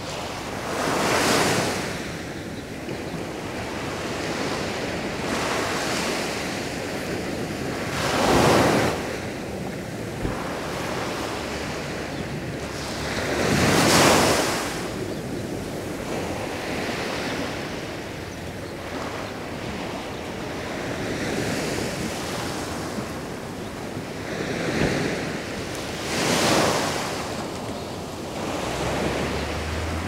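Sea waves breaking on a beach: a steady wash of surf, with a wave swelling up and crashing every few seconds, the four largest about 1, 8, 14 and 26 seconds in.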